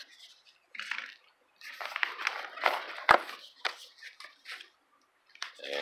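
Handling noise: cardboard firework tubes and cake boxes rustling and clattering as a single-shot tube is set back and the next one picked up. There is a sharp knock about three seconds in.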